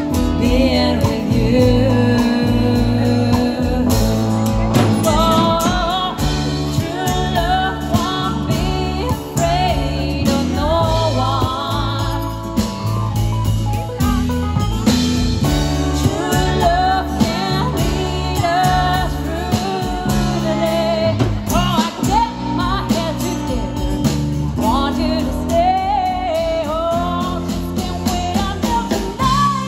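A live pop band performing, with female vocals over acoustic guitar, keyboard, bass and drums.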